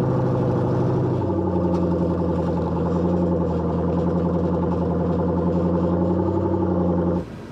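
Vehicle engine running steadily and loud, working under load during a recovery pull; its note shifts about a second in, and the sound cuts off abruptly near the end.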